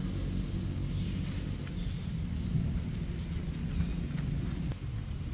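A bird calls over and over with short rising chirps, about one every half-second, over a steady low hum. A brief high squeak comes near the end.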